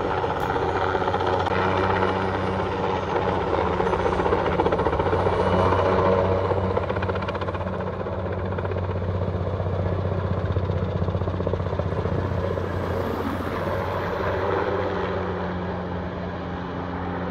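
Helicopter running steadily overhead as it works on a long lift line, a continuous rotor and engine noise with a low hum underneath. It is loudest about five seconds in and eases off a little after that.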